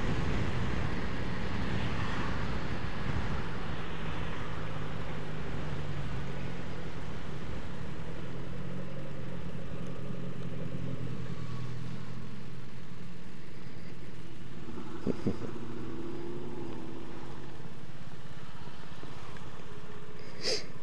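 Motorcycle engine running steadily, heard from the rider's seat. Wind noise on the microphone fades after a few seconds as the bike slows in traffic.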